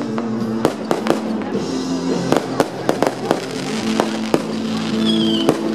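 Aerial fireworks going off in irregular sharp bangs and crackles, roughly two a second, with music playing underneath. A falling whistle comes in near the end.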